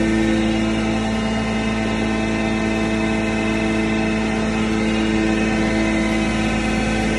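Animal-feed pulveriser running steadily while grain is fed into it: a loud, even hum with several held tones over a constant grinding noise.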